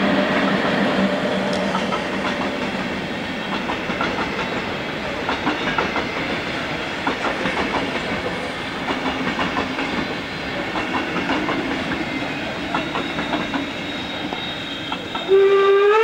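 Train passing, a continuous rolling rumble with wheels clicking over rail joints. Near the end a steam locomotive's whistle blows, rising slightly in pitch as it opens.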